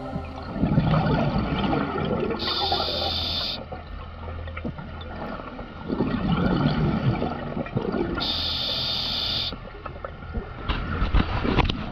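Scuba diver breathing through a regulator underwater: two breath cycles, each a long rush of exhaled bubbles followed by about a second of sharp regulator hiss on the inhale. A few knocks near the end.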